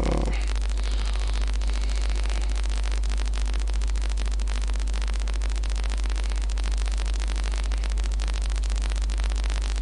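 Steady electrical hum and hiss from the recording chain, with a dense fine crackle like static; no speech.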